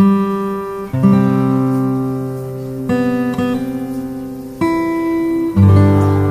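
Background music: acoustic guitar playing slow, ringing chords, a new chord struck every second or two.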